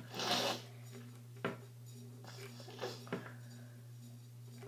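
Small plastic Littlest Pet Shop figures and playset pieces handled on a tabletop: a brief rustle near the start, then a few light clicks and taps, over a steady low hum.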